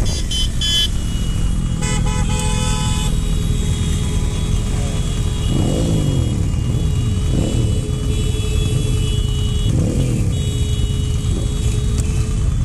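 Motorcycle engine and wind rumble heard from the riding bike, with horns sounding over it: short toots right at the start, a longer blast about two seconds in, then horn tones held for several seconds with a brief break near ten seconds. Engines are revved up and back down a few times in the middle.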